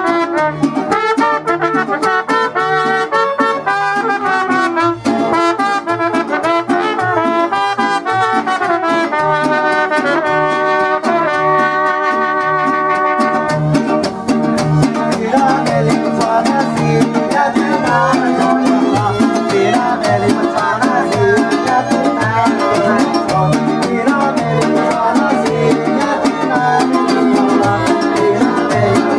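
Live mariachi band playing a lively tune: small guitars strummed in a steady beat under a melody line with some long held notes.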